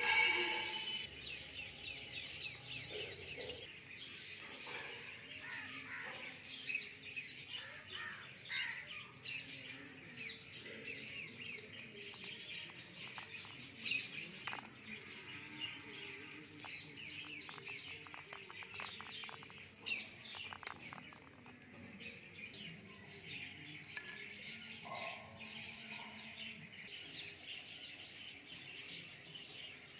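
Small birds chirping and twittering steadily, with a run of light clicks and taps a little past halfway.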